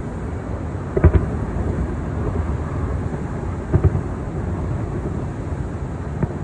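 Distant aerial fireworks shells bursting: booms in quick pairs about a second in and again just before four seconds, with a weaker one near the end. Under them is a steady low rumble of wind on the microphone.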